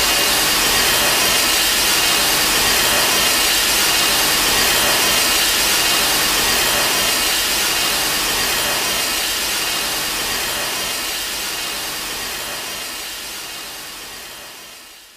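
Kiryu Mechagodzilla sound effect: a steady, hissing mechanical rush, like a jet thruster, that fades away gradually over the last several seconds.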